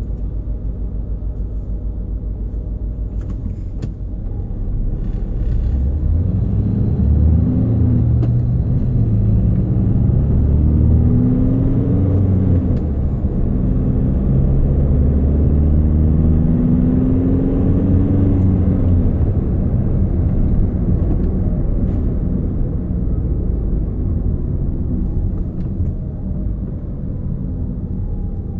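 Volkswagen Jetta TDI being driven, with a steady low rumble that grows louder about five seconds in, the constant rumbling the owner reports as a fault. Through the middle, a humming tone rises and falls several times over the rumble.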